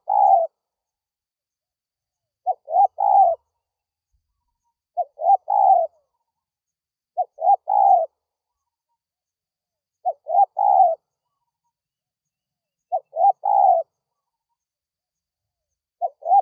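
Spotted dove cooing: a three-note phrase, two short notes and then a longer final one, repeated about every two and a half seconds.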